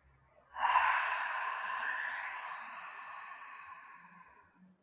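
A long ocean-breath (ujjayi) exhale: a breathy hiss through a narrowed throat. It starts about half a second in and slowly fades away over some four seconds.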